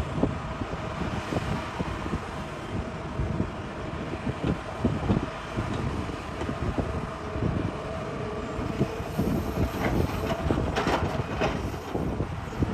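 Hitachi excavator working in rock: a steady engine rumble with irregular knocking and scraping of the bucket against rock, and a cluster of sharper knocks near the end.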